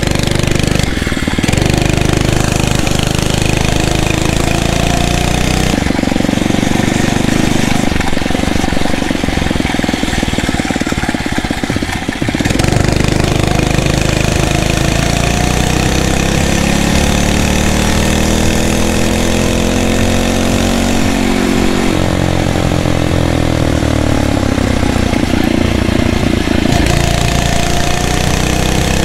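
Phatmoto Rover's 79cc four-stroke engine running under load as the motorized bicycle is ridden, over a steady rushing noise. Its pitch climbs slowly through the middle and drops back near the end as the throttle and speed change.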